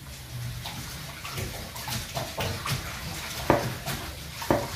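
Water splashing and sloshing in a metal pot as something is washed by hand, with irregular knocks and clinks; the two sharpest come about three and a half and four and a half seconds in.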